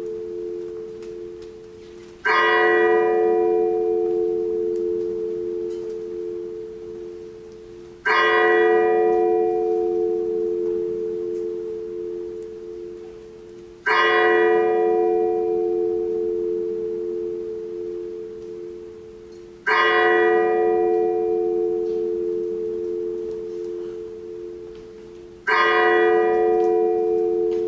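A single bell tolling slowly, struck five times at even intervals of about six seconds, each stroke ringing on and slowly fading into the next.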